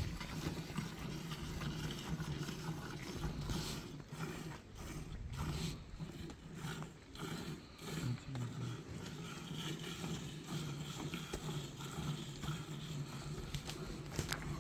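Milk squirted by hand from a cow's teats into a metal pail, in strokes about twice a second, clearest midway through. A steady low hum runs underneath.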